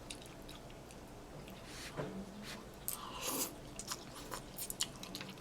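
A person chewing and eating food close to the microphone, with a few small clicks and wet mouth noises scattered through it.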